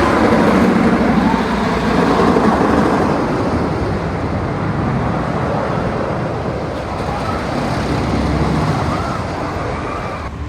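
Ghostrider wooden roller coaster train running along the track: a steady loud rumble of wheels on wood and rushing wind, with faint rider voices in it.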